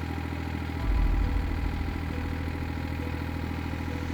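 Excavator engine running steadily, with a deeper, louder surge in its low note about a second in.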